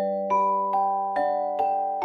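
Background music: a gentle melody of bell-like struck notes, about two a second, each ringing on over a low held note.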